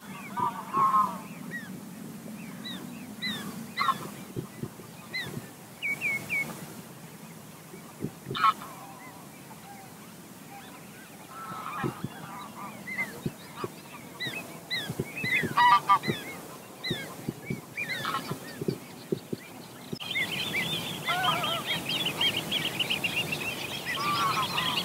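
Wild geese honking, with scattered single calls throughout. In the last few seconds a denser run of rapid, high bird calls joins in.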